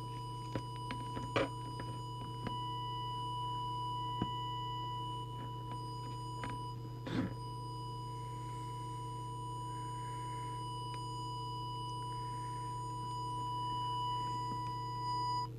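Steady 1 kHz audio test tone from a tone generator, used to modulate the CB transmitter for a deviation check, over a steady low hum. A few handling clicks and a knock come about seven seconds in, and the tone cuts off just before the end.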